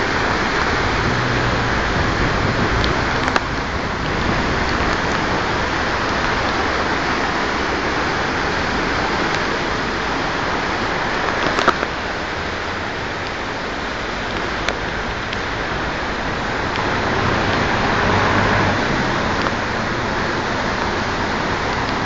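Steady rushing of floodwater and heavy rain in a flash flood, a river in spate tearing between its banks, with a few brief sharp clicks, the loudest near the middle.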